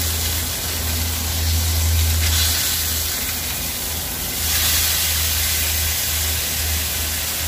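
Fish frying in a little oil in a pan, sizzling with a steady hiss that swells louder twice, about two seconds in and again midway, over a constant low hum.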